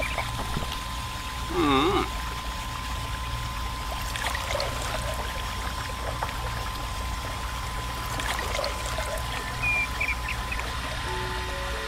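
Water from a mini water pump's hose pouring and trickling in a steady stream into a small pond, over a constant low hum. About one and a half seconds in, a brief, louder wavering tone.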